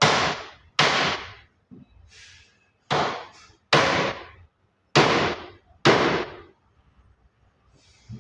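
Hammer driving nails into a plywood back panel of a wardrobe: six loud, sharp blows about a second apart, each ringing briefly through the board, with a few lighter taps between them.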